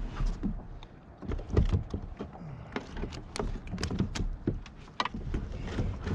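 Irregular clicks, taps and knocks of hands handling gear on a plastic kayak, over a low rumble.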